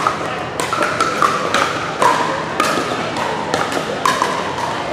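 Pickleball paddles striking a hard plastic ball, a quick, irregular run of sharp pocks from the rally and neighbouring courts, mixed with short squeaks of sneakers on the gym floor.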